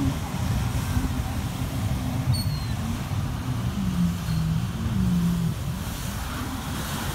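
Jet ski engines running out on the water, the nearest one's pitch rising and falling as it throttles through turns.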